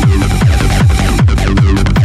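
Loud techno from a DJ set: a steady four-on-the-floor kick drum, each hit dropping in pitch, a little over twice a second, under a dense electronic mix.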